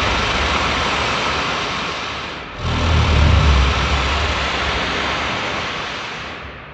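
Very loud, unexplained rushing noise with a deep rumble under a broad hiss, coming in two long blasts one after another: the first fades about two and a half seconds in, the second starts at once and dies away near the end.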